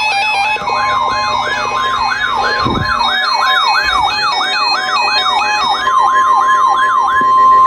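Emergency alert tones sounding together: a siren-like tone sweeping up and down about two and a half times a second over a steady high tone. The steady tone gets louder and cuts off near the end.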